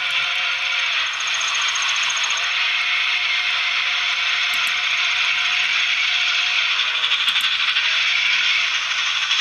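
Steam locomotive running hard toward the listener with a steady hiss and roar, its whistle sounding a two-note chord in blasts: a long one a couple of seconds in and a shorter one near the end, the pitch sagging as each blast opens and closes. Heard as played back through a television speaker.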